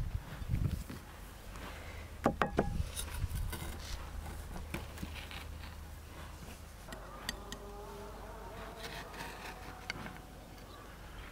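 Knife cutting chocolate cake in a cast-iron skillet: soft scraping, with a few sharp clinks of metal on the pan about two seconds in. A faint buzz comes in during the second half.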